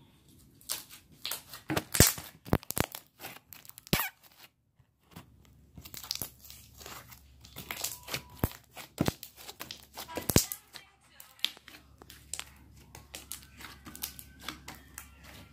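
Glossy slime squeezed and kneaded by hand, giving off a fast, irregular run of sharp wet clicks and pops, with a short pause about four seconds in.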